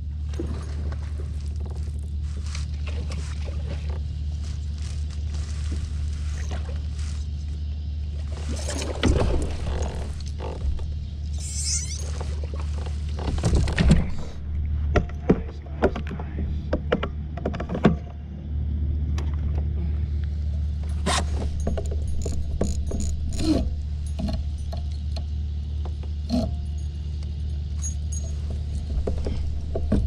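A bass being fought and landed beside a fishing kayak: splashes and knocks as the fish is swung out of the water about halfway through, then scattered clicks and rattles of tackle on the hull, over a steady low drone.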